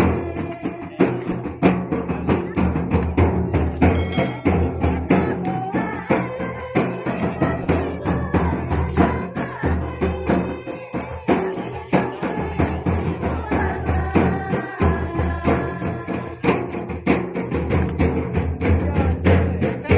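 Rhythmic folk music: drums beating a steady, repeating pattern with jingling percussion, and a pitched melody line at times above it.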